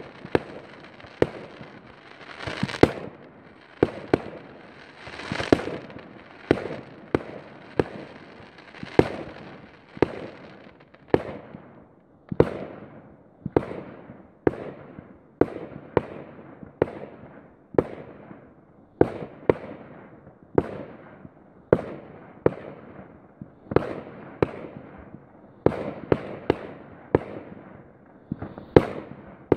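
Aerial fireworks firing in quick succession: a steady run of sharp bangs, a bit more than one a second, each trailing off briefly.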